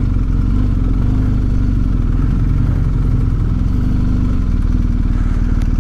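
BMW R1250GS's boxer-twin engine running steadily as the bike rolls slowly at low speed.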